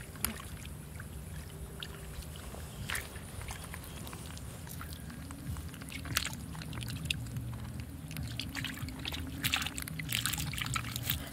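Catfish and small fish stirring in a bucket of muddy water: a few short wet splashes and knocks, about 3, 6 and 10 seconds in, over a steady low rumble.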